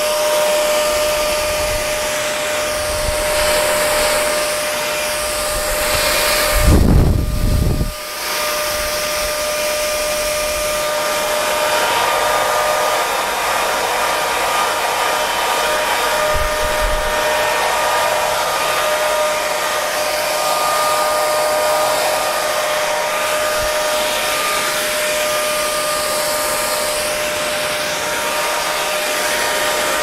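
Hair dryer running steadily: a constant rush of air with a steady motor whine. About seven seconds in there is a brief low rumble, the loudest moment.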